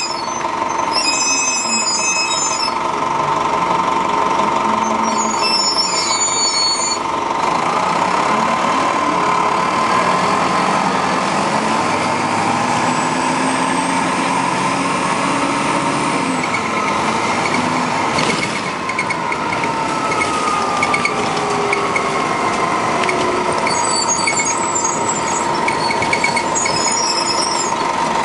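The Detroit Diesel Series 50 inline four-cylinder diesel of a 1996 Nova RTS city bus, heard from inside the bus as it drives. It climbs in pitch as the bus pulls away over the first several seconds, then falls away in the second half as it slows, over a steady whine and road noise.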